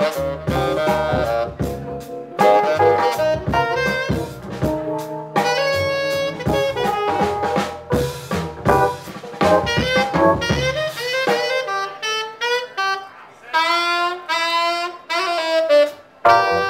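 Live jazz quartet playing: saxophone leading over upright bass, drums and keyboard. About two-thirds of the way through, the bass and drums drop out and the saxophone plays alone in a run of quick notes, with the full band coming back in near the end.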